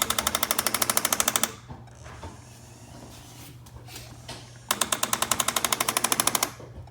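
Roborock S8 robot vacuum's VibraRun vibrating mop module rattling in rapid knocks, about a dozen a second. It comes in two spells, one of about a second and a half at the start and one of about two seconds near the end. The robot has reported the VibraRun system as jammed.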